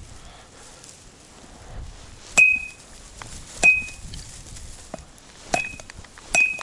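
Four sharp strikes from a metal fish priest, each leaving a brief high metallic ring, used to dispatch a pike.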